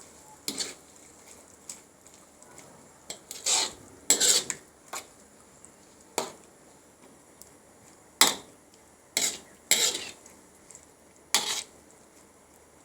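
A cooking utensil stirring a wet sauce in a pan, scraping and knocking against the pan in short, irregular strokes.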